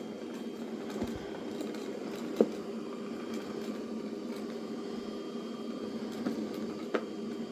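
Roborock Saros Z70 robot vacuum running, a steady hum from its motors and brushes, with a few sharp ticks, the loudest about two and a half seconds in.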